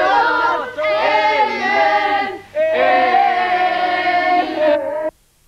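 A group of voices, children and women among them, singing together without instruments, holding long notes with short breaks between phrases; the singing cuts off suddenly near the end.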